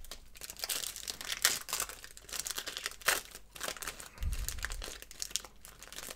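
Foil wrapper of a Pro Set 1990/91 soccer card pack crinkling and tearing as it is pulled open by hand, with a dull low bump about four seconds in.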